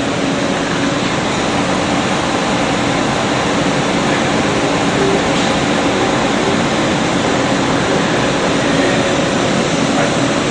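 Steady mechanical hum with a rush of air, like running ventilation or shop machinery, with a faint low drone and no distinct events.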